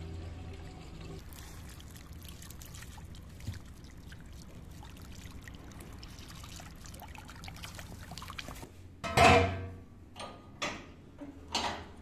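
Water from a hose running into an empty fire extinguisher shell and pouring out onto the ground, rinsing out leftover extinguisher powder. Near the end come several louder rushes of noise, the first and loudest about three-quarters through.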